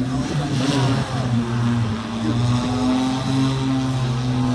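Opener BlackFly eVTOL's electric propellers running in a loud, steady hum, with its pitch shifting in the first second as the aircraft lifts off and climbs.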